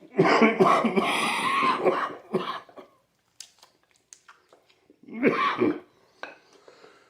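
A man coughing hard and clearing his throat in fits: a long bout in the first two seconds, a short one just after, and another about five seconds in. He puts the coughing down to a candle wick caught in his throat while eating.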